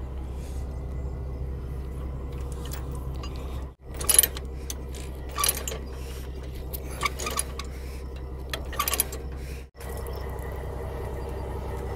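Semi truck's diesel engine idling steadily while steel load chains and binders clink and clank in a few sharp, irregular bursts as loose tie-down chains on a hauled excavator are dealt with.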